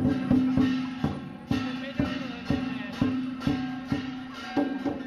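Chinese lion dance percussion: a large lion dance drum beating a steady rhythm of about two strikes a second, with clashing cymbals and a ringing gong.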